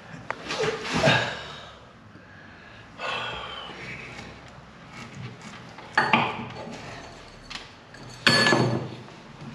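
Tiles being broken out of a wall behind a toilet pan, about five separate knocks and clatters with scraping between them. The loudest comes near the end and has a brief ringing tone.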